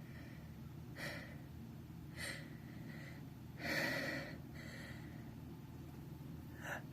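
A person's short, breathy gasping inhalations, about five spread over a few seconds, the longest about four seconds in: the build-up to a sneeze.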